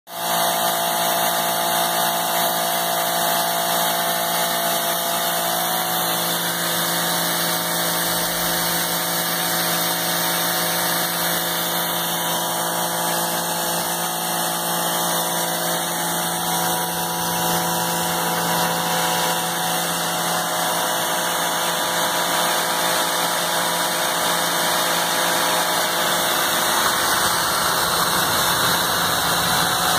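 High-pressure washer running steadily: a constant motor-and-pump hum with a steady hiss.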